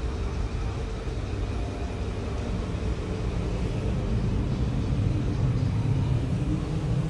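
Low rumble of road traffic, growing a little louder about halfway through.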